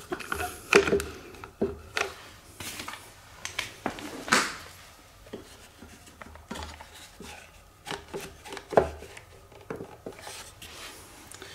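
One-handed bar clamps being fitted and tightened onto a timber block on a drill press table: irregular clicks and knocks of the clamp jaws and handles against the wood and table.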